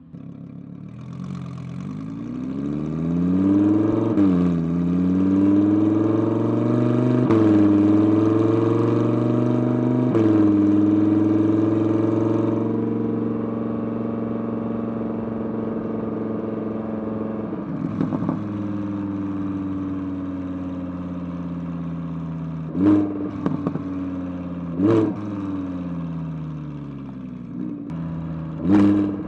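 Audi R8's V10 with an aftermarket titanium exhaust accelerating hard through about three upshifts, the pitch climbing and dropping at each shift, then cruising steadily. Several sharp throttle blips come near the end.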